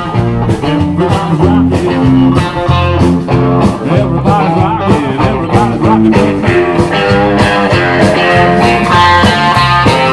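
Rock-and-roll band playing an instrumental break led by guitar, over a strong bass line and a steady drum beat.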